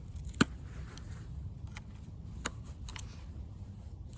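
A few sharp clicks and taps of hand tools against engine metal during a teardown, the loudest about half a second in, over a low steady hum.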